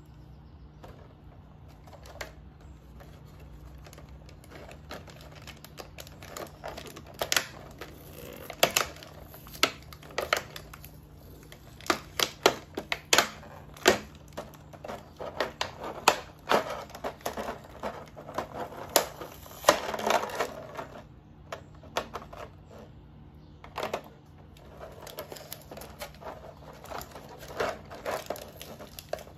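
Clear plastic blister tray being handled and flexed, giving irregular sharp crackles and clicks: few at first, thick through the middle, a short lull, then more near the end.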